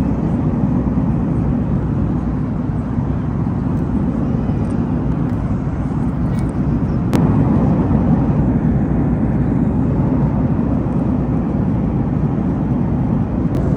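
Steady low drone of a passenger airliner's engines and airflow, heard from inside the cabin, with a brief click about halfway through.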